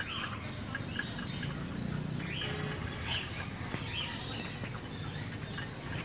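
Young chickens feeding on scattered grain, giving scattered short, high chirps amid light pecking taps.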